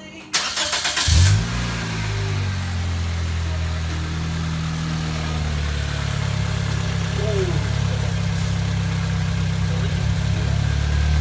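2008 Toyota Corolla four-cylinder engine cranked by the starter, catching about a second in and then idling steadily. This is its first run with the new oil cooler and feed and return lines fitted, run to check the lines for leaks.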